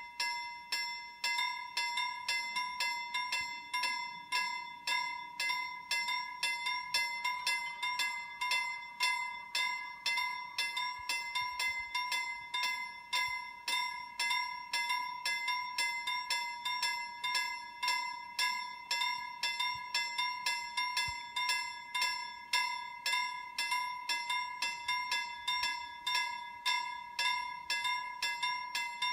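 Level-crossing warning bell that starts suddenly and keeps ringing in rapid, evenly spaced strokes, each a bright ringing tone: the crossing has been triggered by an approaching train.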